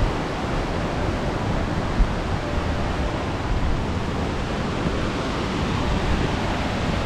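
Steady rushing of Whangarei Falls, with low wind buffeting on the microphone and a single thump about two seconds in.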